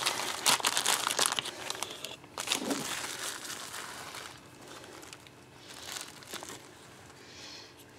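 Plastic packaging and bubble wrap crinkling as it is handled and unwrapped, in dense bursts of crackle during the first couple of seconds, then quieter rustling as a soft fabric pouch is opened.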